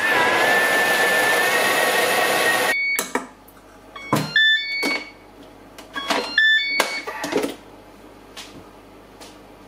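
Thermomix blades mixing cake batter at speed 6, a loud steady whir with a high whine, cutting off suddenly under three seconds in. Then clicks and clunks as the lid and steel mixing bowl are handled, with two short runs of electronic beeps.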